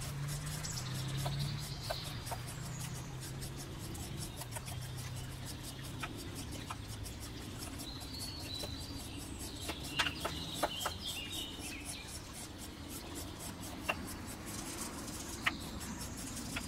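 Birds chirping in the background, in short calls about halfway through, with a few sharp clicks scattered through it.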